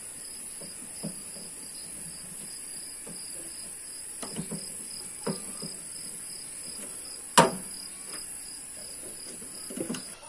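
Screwdriver working the screws of a split air conditioner outdoor unit's wiring terminal block, loosening them to disconnect the power cable: small scattered metal clicks and scrapes, with one sharp click about seven seconds in.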